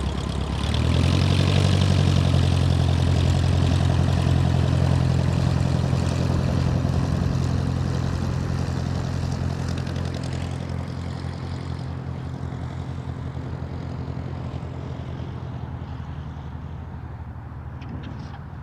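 Light propeller plane's piston engine droning at a steady pitch as it passes: it swells about a second in, is loudest soon after, then slowly fades away.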